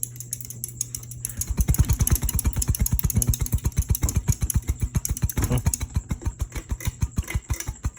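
Close-mount ceiling fan running, its motor humming steadily, then from about a second and a half in a fast, even clicking of several ticks a second as the fan turns.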